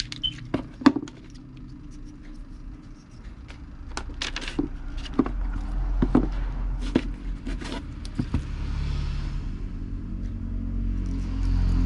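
Scattered sharp clicks and knocks of a plastic motorcycle instrument-cluster housing and its wire connectors being handled and turned over on a wooden workbench. A low steady rumble builds from about five seconds in.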